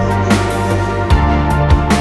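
Background music with drum hits over a sustained low bass.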